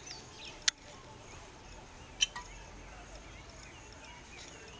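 Small birds chirping, with two sharp taps about a second and a half apart from a bricklayer's tools on brickwork.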